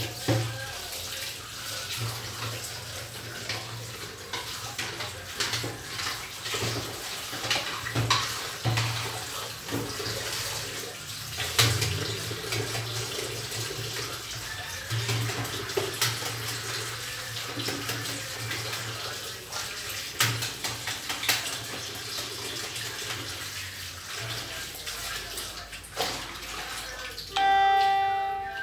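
Kitchen tap running into a steel sink while eggs are rinsed by hand, with frequent knocks and clinks of the bowl against the sink. Near the end a loud, steady beep-like tone sounds for about a second.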